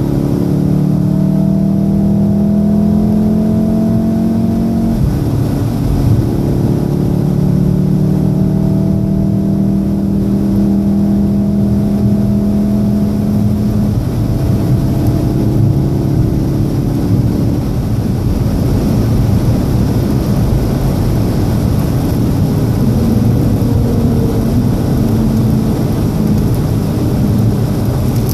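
Golf VII R's turbocharged 2.0-litre four-cylinder heard from inside the cabin under hard acceleration, its pitch climbing and dropping at an upshift about five seconds in, climbing again until about fourteen seconds in, then easing off under steady tyre and road noise.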